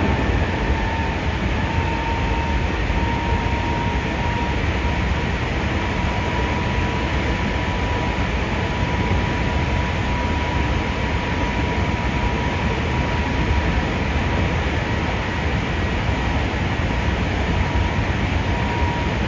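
Running sound inside a Hankyu 5300-series resistance-controlled electric train car: a steady rumble of wheels on rail with a constant motor whine that rises slightly in pitch near the start.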